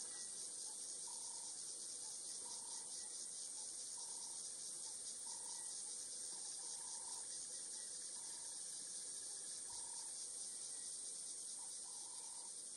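Insect chorus in the bush: a steady, high-pitched buzzing with a fast pulsing to it, and short faint calls now and then lower down.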